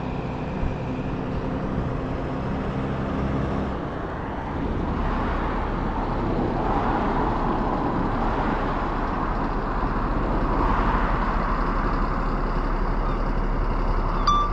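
A fire engine's engine running as it pulls out and moves slowly along the road, with no siren. The rumble grows louder about halfway through.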